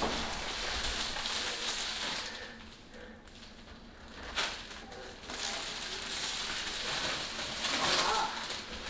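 Blue protective plastic film being peeled off the stainless-steel front of a microwave, crinkling and crackling throughout, with a short sharp snap about four and a half seconds in.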